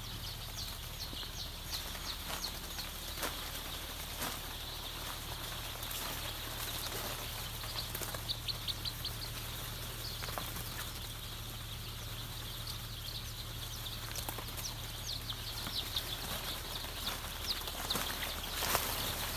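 A brood of two-day-old BV380 brown-egg layer chicks peeping: many short, high chirps overlapping throughout, over a steady low hum.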